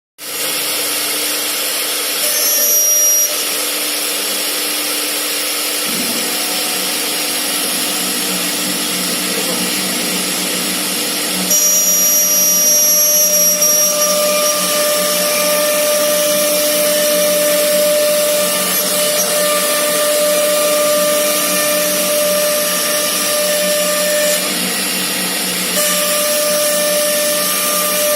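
Woodworking CNC router's air-cooled 6 kW spindles running at speed, a steady whine over a hiss as the bits cut wood. It grows louder for about a second near the start and again for a couple of seconds in the middle.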